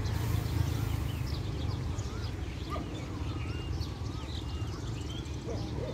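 Birds chirping and twittering in many short, warbling calls, over a steady low rumble.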